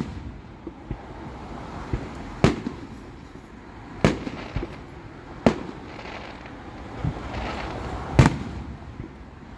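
Fireworks going off: a string of sharp bangs, four loud ones spaced about a second and a half apart, with smaller pops between them and a crackling swell late on.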